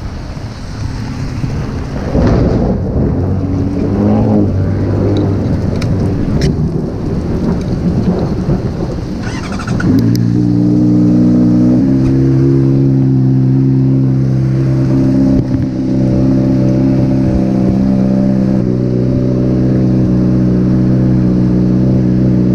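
Honda CBR600RR inline-four engine running as the motorcycle is ridden, heard under heavy wind and rain noise on the microphone. Its pitch shifts through the first ten seconds, then holds steady at a constant cruising speed.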